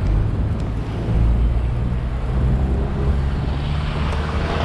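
A motor vehicle engine running close by, a low steady hum that grows stronger about a second in, over street and wind noise.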